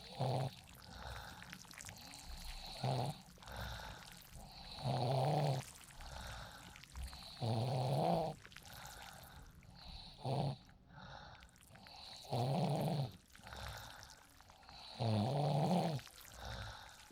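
Person snoring deeply in sleep, a snore roughly every two and a half seconds. Some snores are brief, others last about a second, with a pitch that rises and falls.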